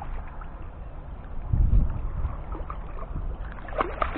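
Water lapping and sloshing around a kayak, with a low wind rumble on the microphone and a few short splashes near the end.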